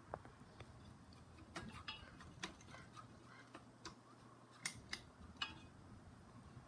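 Faint, irregular clicks and ticks over a low hum that stops about two-thirds of the way through.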